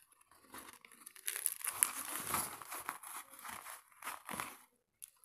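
A soft black faux-leather drawstring microphone pouch crinkling and rustling as it is squeezed and turned over in the hands. The handling noise comes in irregular bursts and stops abruptly near the end.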